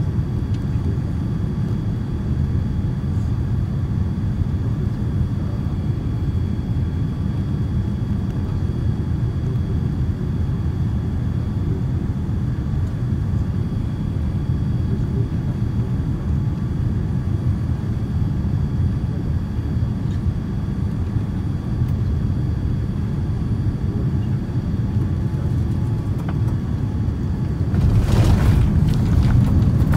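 Cabin noise of a Boeing 787-9 Dreamliner on final approach: a steady low rumble of engines and airflow with a faint steady whine. About two seconds before the end the noise jumps to a louder, rougher rumble as the airliner touches down on the runway.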